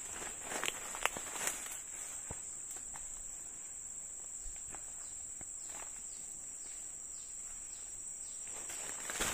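A steady, high-pitched insect drone, with a few short snaps and rustles in the first couple of seconds and again near the end.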